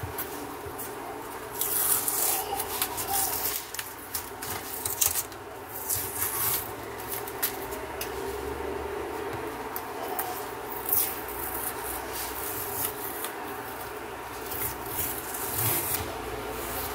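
Masking tape being peeled and pulled off a wooden screwdriver handle: a run of short, irregular rasping tears and crinkles, loudest about two seconds and again about five seconds in.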